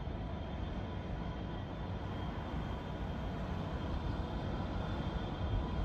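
Diesel locomotives of an approaching train: a steady low engine rumble, growing slowly louder.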